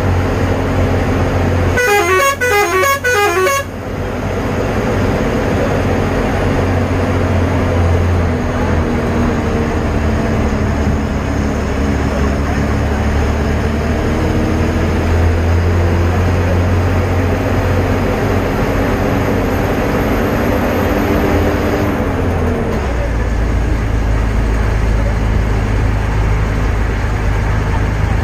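Vehicle running steadily on a road, with constant engine and tyre noise. About two seconds in, a musical multi-note horn plays a quick run of stepping notes for under two seconds. A little over twenty seconds in, the engine note drops.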